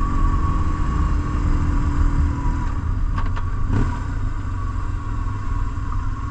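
BMW R1150GS Adventure's flat-twin boxer engine running steadily while the bike is ridden, heard under a dense low rumble.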